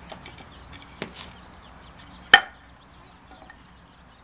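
Sharp knocks of a knife blade cutting a notch into a wooden bow-drill fireboard: a few light taps, then one loud knock a little over two seconds in.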